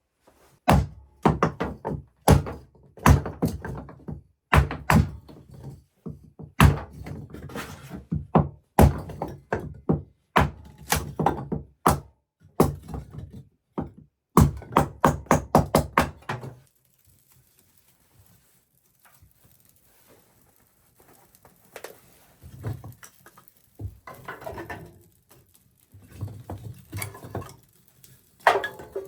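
A quick series of heavy knocks and thunks, two or three a second in clusters. About two-thirds of the way through they stop, and fainter, scattered knocks follow.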